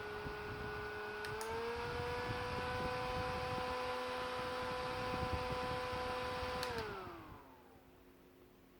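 iriver BF-A7 electric fan running with a steady motor whine over the rush of air. A click about a second in, then the whine steps up in pitch as the fan speeds up. Another click near the end, and the fan slows, its whine gliding down to a much quieter, lower tone.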